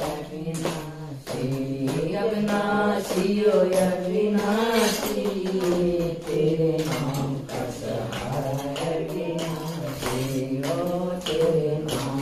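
Group of women singing a Haryanvi devotional bhajan together, with a steady beat of hand claps.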